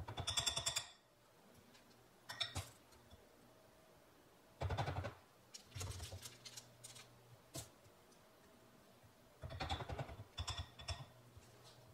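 Metal forks clicking and scraping against a glass bowl of melted chocolate as peppermint patties are dipped and tapped to shake off the excess, in several short runs of quick taps with pauses between.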